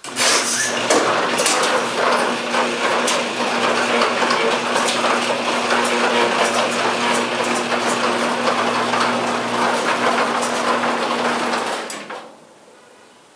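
Chamberlain garage door opener running the door along its track: the motor hums steadily while the drive and door rattle and click, then it stops suddenly about twelve seconds in, at the end of its travel.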